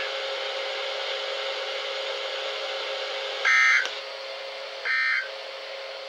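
NOAA Weather Radio end-of-message (SAME) data tones played through weather alert radio receivers: about three seconds of receiver hiss with a low steady hum, then two short buzzing data bursts a little over a second apart.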